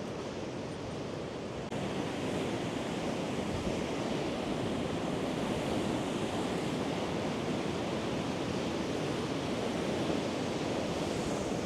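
Sea surf washing steadily onto the beach, a continuous rushing that gets a little louder about two seconds in.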